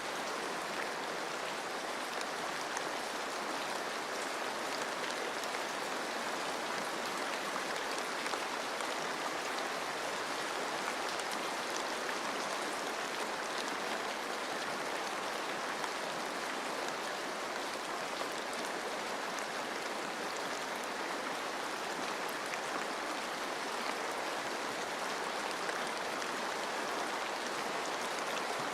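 Steady rain falling on forest leaves, mixed with the rush of running stream water; an even hiss with fine drop ticks, unchanging throughout.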